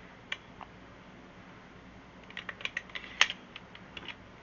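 Light, irregular clicks and rattles from a staple gun being handled and made ready, with a small cluster of clicks past the middle.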